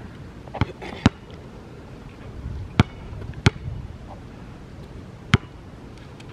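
Basketball bouncing on a hard outdoor court: five sharp, separate bounces at uneven intervals, as in a slow dribble.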